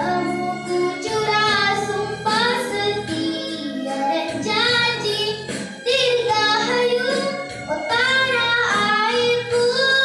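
A young girl singing a patriotic song into a microphone, her held notes wavering with vibrato, over a musical backing track with sustained low notes.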